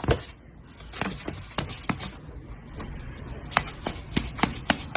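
A cat swatting and pawing at a person's hand: a dozen or so light taps and scuffs at irregular intervals, with a quieter stretch in the middle.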